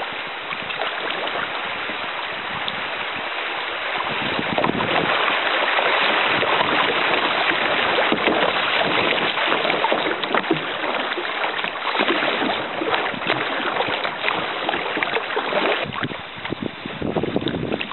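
Rushing, splashing river water around a kayak running through a shallow riffle, louder through the middle and dropping off near the end as the water calms.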